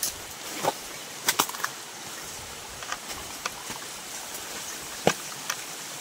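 Irregular footsteps on stones and leaf litter, heard as scattered short clicks and knocks, over the steady hiss of a small waterfall.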